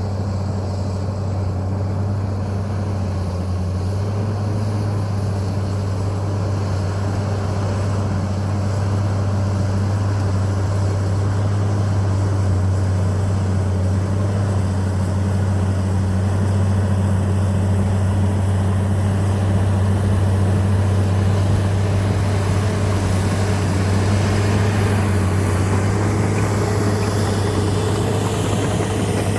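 John Deere 750J bulldozer's diesel engine running steadily with a deep, even hum. Near the end a faint rising whine comes in over it.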